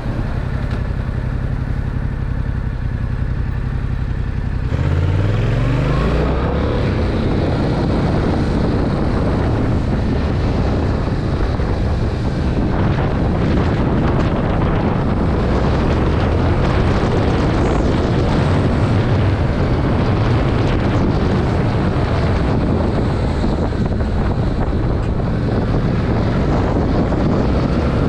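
Stock 2021 Yamaha MT-07 parallel-twin engine and exhaust running steadily at low revs. About five seconds in it revs up sharply under acceleration, then runs on at road speed under heavy wind noise on the microphone.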